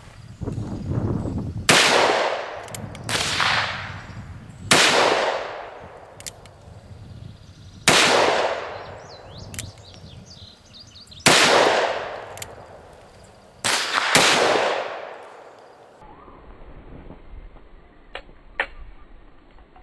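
Six revolver shots fired one at a time at uneven intervals, each sharp crack followed by a long echoing decay.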